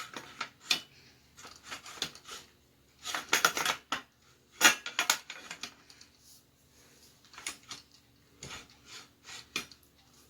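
Hard clicks, clinks and short scraping rattles as a part is worked onto a shotgun by hand, coming in irregular clusters with pauses, the loudest just past the middle.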